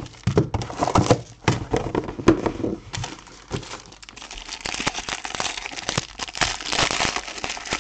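A trading card box being unwrapped: the plastic wrapper crinkles and tears amid scattered handling clicks. The crinkling grows denser in the second half.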